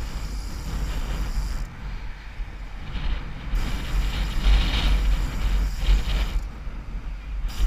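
Rapid clicking of a trials bicycle's freewheel hub as the bike coasts, over heavy wind rumble on the rider's camera microphone and tyre noise on the pavement.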